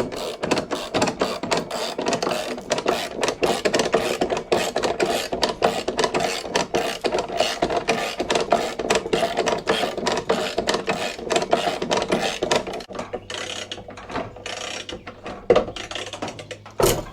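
Hand ratchet wrench being worked back and forth, its pawl clicking in quick, dense runs, used in place of a drill. The clicking thins out after about 13 seconds, and a sharp knock comes near the end.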